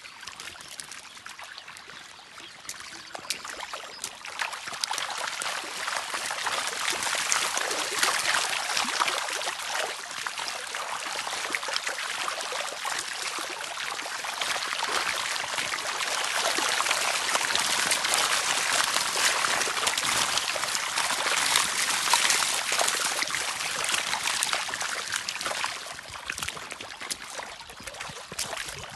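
Shallow water trickling and splashing over the stones of a nearly dried-up riverbed, a steady watery hiss that grows louder after a few seconds and eases off near the end.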